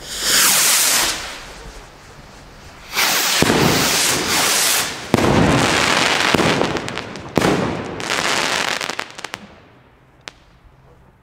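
Firework rockets launching in clusters from a cake, their motors hissing in four long rushes of one to two seconds each. Sharp bangs come about five and seven and a half seconds in, and a lone pop near ten seconds. The hissing dies away near the end.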